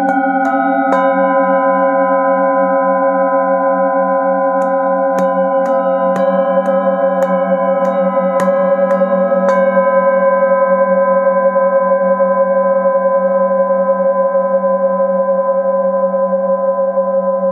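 A set of metal singing bowls ringing together in several steady, overlapping tones with a slow wavering beat. A mallet strikes the bowls about eight times in the first ten seconds, then the tones sustain with no new strikes.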